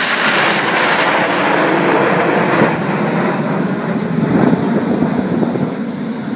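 Jet noise from the Red Arrows' formation of BAE Hawk T1 jets flying past overhead: a loud, steady rush whose pitch sinks as the formation passes and moves away.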